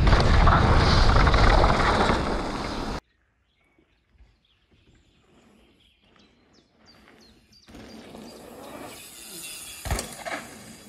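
Wind rushing over an action camera's microphone with the rattle of a mountain bike riding down a trail, cutting off abruptly about three seconds in. Then near quiet with a few short bird chirps, followed by a low steady outdoor background and a single knock near the end.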